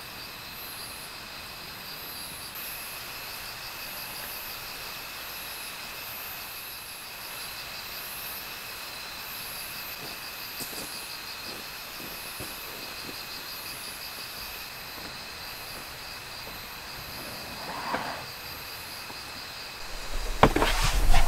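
Steady chorus of insects chirping and trilling in a forest, an even pulsing drone with high chirps over it. Near the end, loud knocks and handling clatter break in.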